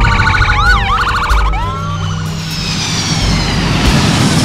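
Police sirens in a fast yelp for about the first two seconds, with long falling wails layered over them that carry on to the end, over a low steady drone.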